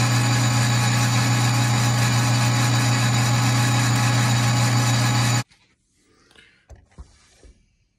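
Metal lathe running while a rotary broach cuts a hexagon socket into the end of a spinning stud: a steady machine hum that stops abruptly about five and a half seconds in. A few faint clicks follow.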